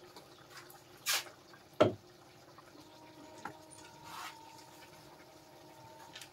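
Rinsing a steel mixer jar with water: a short splash of water about a second in and a sharp knock of steel just before two seconds, then faint trickling of water.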